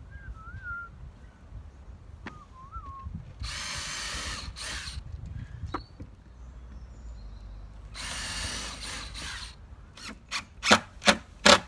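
Cordless power drill run twice, about a second each time, driving into the timber boards of a chicken house. It is followed near the end by four or five sharp, loud knocks on the wood.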